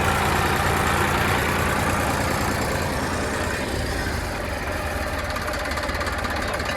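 Heavy diesel engine running steadily, slowly getting a little quieter.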